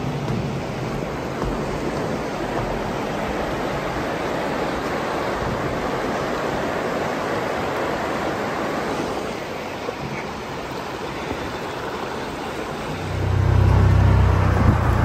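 Rushing floodwater of a swollen creek, a steady even rush. About 13 seconds in, a Can-Am side-by-side's engine comes in, much louder and low-pitched.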